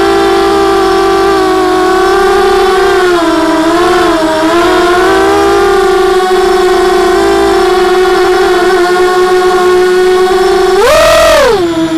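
Racing quadcopter's SS2204 2300Kv brushless motors spinning HQ 5x4 propellers on a 4S battery: a steady whine that wavers in pitch as the throttle shifts, then climbs sharply and drops back near the end in a brief burst of throttle.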